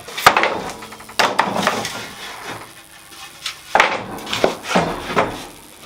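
Wooden strips knocking and clattering against each other and the saw table as they are picked up and handled, a handful of sharp knocks, the loudest just after the start.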